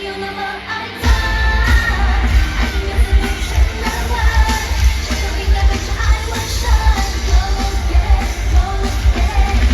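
Live pop concert music heard from the audience floor of an arena: a female voice singing over a full band, with a heavy bass and drum beat coming in about a second in.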